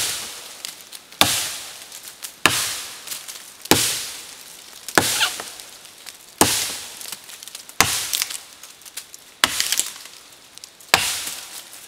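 Re-hafted Fiskars axe chopping into a hard, dead sugar maple trunk: about nine strikes at a steady pace of roughly one every second and a quarter, each a sharp crack that dies away quickly, with a little splintering crackle after some blows.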